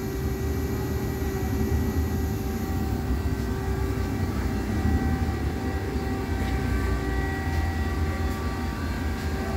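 Steady electrical and mechanical hum of a powered-up Hardinge XR700 vertical machining center standing idle, its spindle not yet running: a low rumble with several steady tones above it and a few faint ticks near the end.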